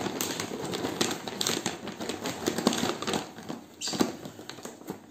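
Dry wood smoking chips rattling and rustling as they are tipped and handled out of their bag: a dense patter of small clicks that thins out after about four seconds.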